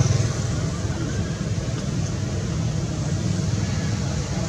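An engine running steadily at idle, a low, evenly pulsing drone.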